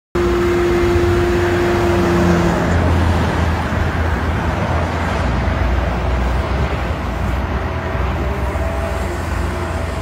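Caterpillar 962K wheel loader's diesel engine running steadily, with a steady high tone over it for the first two and a half seconds.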